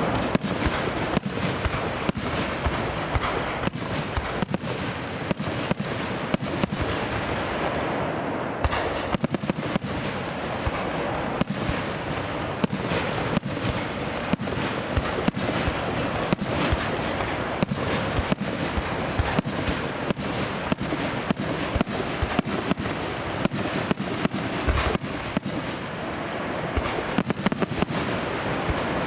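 Aerial fireworks going off in quick succession: a steady stream of sharp bangs and crackles over a continuous hiss and rumble of bursting shells.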